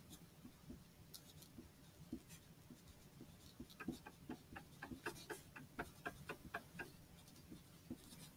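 Wooden pencil writing a word by hand on paper: faint, quick scratches of the lead, one per stroke, coming thickest in the middle few seconds.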